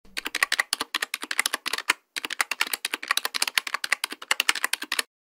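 Keyboard typing sound effect: a quick run of key clicks, with a brief pause about two seconds in, stopping shortly before the end.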